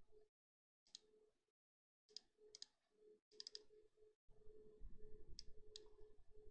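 Faint computer mouse clicks, a few single and quick double clicks scattered through, over a faint steady hum that cuts out in several short gaps.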